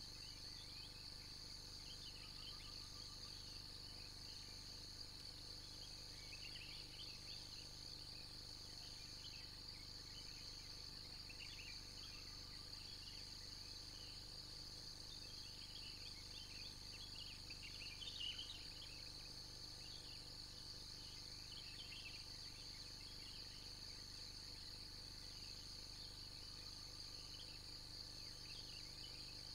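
Faint, steady insect chorus: an even high buzz with a pulsing trill above it and scattered small chirps, a little louder about two-thirds of the way through.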